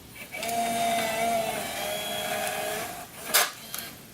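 Sony TRV-140E Digital8 camcorder's tape mechanism motor whirring steadily for about two and a half seconds as it ejects the cassette, followed by a sharp click a moment later.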